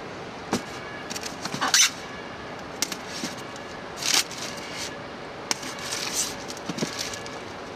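Polystyrene foam shipping boxes being handled and shifted against one another: a string of short scrapes, rustles and light knocks, the loudest about two seconds in, over a faint steady hum.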